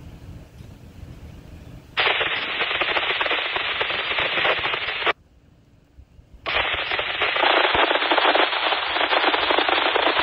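Two bursts of radio static from a scanner, each about three to four seconds long, cutting in and out abruptly with a short gap between them and no voice in them. A low rumble from the passing freight train sits under the first two seconds.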